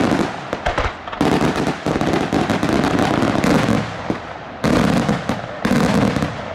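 Daylight fireworks show: aerial shells bursting in a dense, rapid barrage of bangs and crackling. The barrage comes in loud waves that break off for a moment and start again several times.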